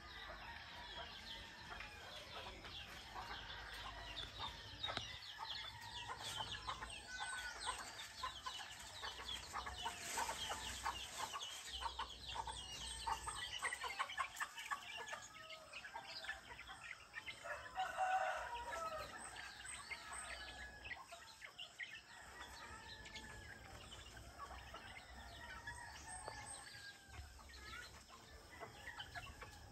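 Dawn chorus of many small birds chirping, with roosters crowing several times; the loudest crow comes about two-thirds of the way through.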